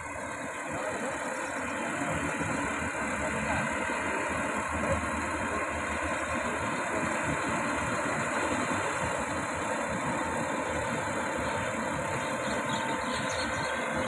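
Yanmar AG600A combine harvester's diesel engine running steadily as the machine cuts rice.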